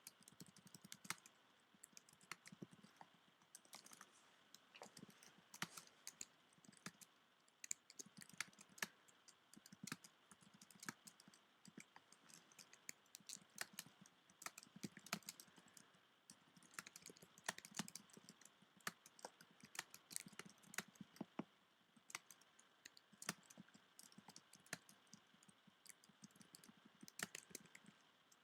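Typing on a computer keyboard: a continuous, uneven patter of faint key clicks, several a second.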